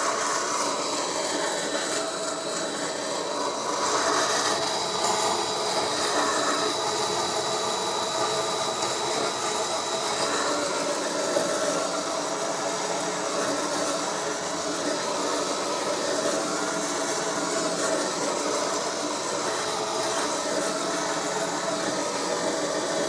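Drill spinning a wire wheel against the trunk lid's seal edge, scrubbing off hardened old glue: a steady whir with a rasping scrape, its pitch rising and falling in the first few seconds as the speed varies.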